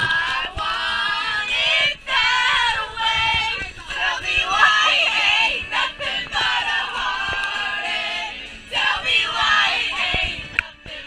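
A group of young women singing loudly together, with a dip about two seconds before the end.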